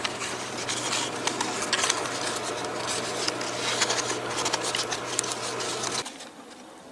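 Birch bark being rubbed and flexed in the hands: a dense run of small crackles and scratches over a steady low hum, dropping abruptly to a quiet hush about six seconds in.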